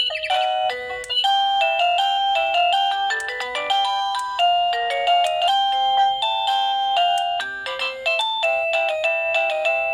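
Plug-in wireless doorbell receiver playing one of its electronic ringtone melodies: a quick tune of short, clear beeping notes that keeps changing pitch, played loudly.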